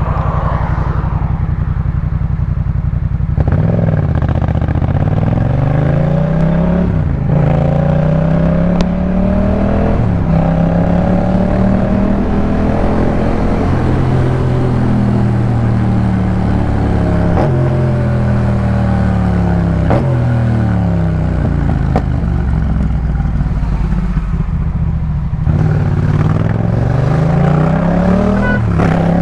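Yamaha MT-07's 689 cc parallel-twin engine, breathing through a full Jeskap K4 aftermarket exhaust, under way. The revs climb and fall again and again, with abrupt pitch drops at several points typical of gear changes.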